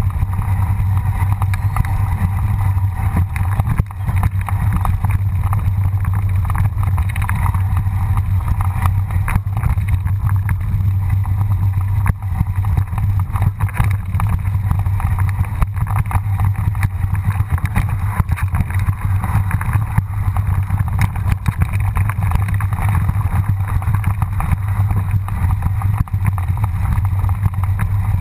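Mountain bike descending a rough dirt trail, heard through a bike-mounted action camera: a steady low rumble of wind and vibration with a constant clatter of small knocks as the tyres and frame hit stones and ruts.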